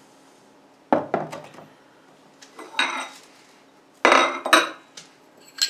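Metal hookah stems and pipes of steel and chrome-plated zamak clinking and knocking as they are set down on the table and handled. There are a few sharp metallic knocks about a second in and again around three seconds, then a louder clatter about four seconds in.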